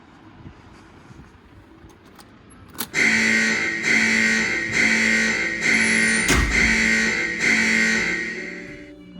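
Background music: after a few quiet seconds, a loud distorted electric-guitar riff comes in about three seconds in, in evenly repeated strokes, and fades near the end.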